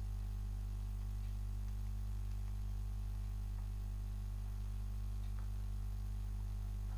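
Steady low electrical hum with a faint hiss: room tone.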